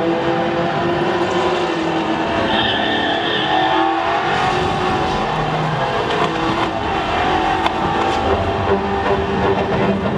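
Race car engine sound, its note stepping up and down in pitch as it revs and shifts, from a ride film's soundtrack played loud through theatre speakers.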